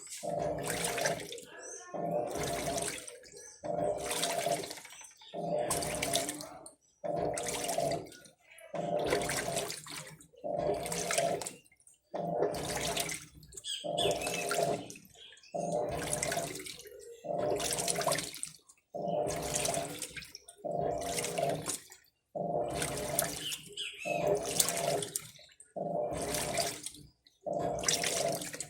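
Electrolux LTC15 top-loading washing machine agitating a full tub of water: the agitator swings back and forth in regular strokes about once a second, each stroke a swish and slosh of water with the drive motor humming.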